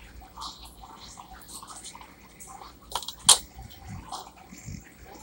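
Rustling and knocking from a phone camera being handled as it is carried through a room, with one sharp click about three seconds in that is the loudest sound.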